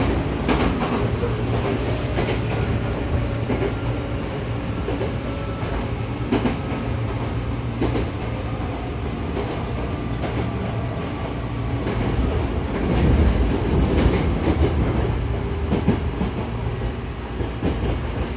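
Hankyu 6000-series electric train running, heard from inside the car by the doors: a steady low rumble of wheels on rail with scattered clicks from rail joints. A faint whine slowly falls in pitch through the first half, and the running gets louder with a cluster of clicks about two-thirds of the way through.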